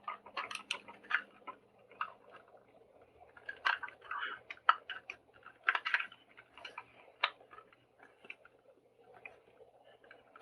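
Plastic headphone ear-cup housing, held shut by welded plastic rivets, being pried and forced open by hand: irregular clicks, cracks and scraping of plastic, in clusters, with the loudest cracks near the middle.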